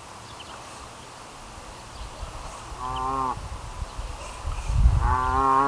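A cow mooing twice: a short call about three seconds in, then a longer, louder one that rises in pitch and holds steady near the end.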